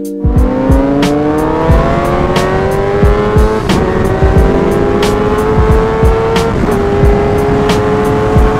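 Suzuki GSX-R sportbike's inline-four engine under hard acceleration, its pitch climbing steadily and dropping briefly at two upshifts, about four and six and a half seconds in.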